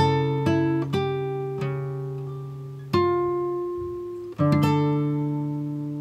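Background music: an acoustic guitar plucking slow notes and chords, each left to ring out and fade before the next.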